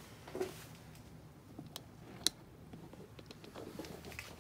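Faint scattered clicks and light handling noise, with one sharp click a little over two seconds in.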